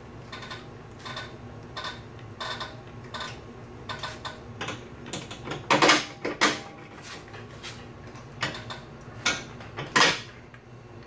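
Irregular metallic clicks and clinks of a socket and ratchet working the 15 mm nuts off the transmission mount studs. There are sharper clanks about six and ten seconds in.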